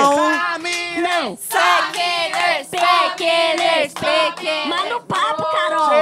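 Several women's voices singing together, a loud, lively group chant with short breaks.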